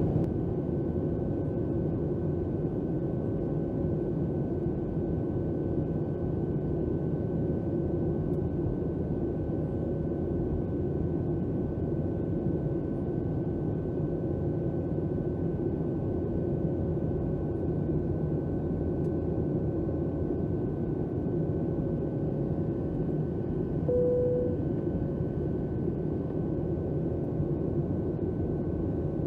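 Steady in-flight cabin drone of a Boeing 737-700: the CFM56-7B turbofans and airflow, with a faint steady whine over it. A short single tone sounds once, about five seconds before the end.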